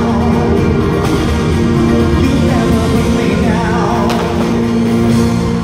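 Live pop song played loud through an arena sound system: a singer's voice over a band with a steady bass line, heard from the audience stands.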